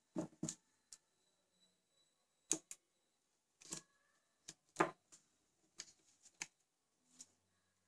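A dozen or so separate light clicks and snips, irregularly spaced, from scissors and fingers working double-sided tape onto a plastic mobile phone body.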